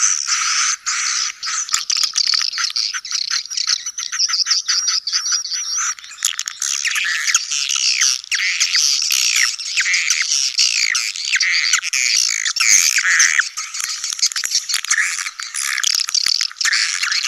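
A dense colony of edible-nest swiftlets, adults and chicks, twittering together: many overlapping high, rasping chirps and sweeping calls, laced with rapid clicks. This is the colony-with-chicks call played in swiftlet houses to lure swiftlets in.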